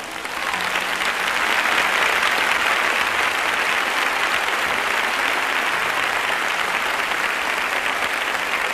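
Live audience applauding, building up over the first second and then holding steady.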